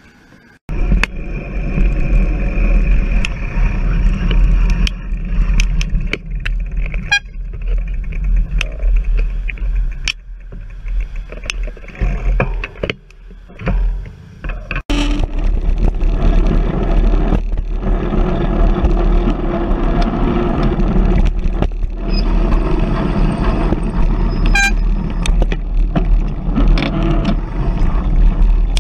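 Road traffic at a signalled intersection, with cars and trucks idling and passing, heard through a bicycle handlebar camera's microphone with a steady low rumble. The sound starts abruptly about a second in and changes abruptly about halfway through.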